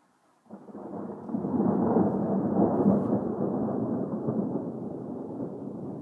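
Thunder rumbling: it breaks in suddenly about half a second in, is loudest around two to three seconds in, then slowly fades.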